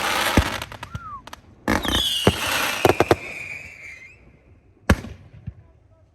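Fireworks going off: sharp bangs and crackling, a short falling whistle about a second in, then a big burst with a long whistle that slides slowly down in pitch. The bangs thin out and fade in the last second.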